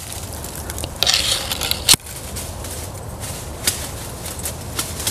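Dry leaves and twigs crackling and crunching underfoot as someone moves through brush, with a sharp click about two seconds in.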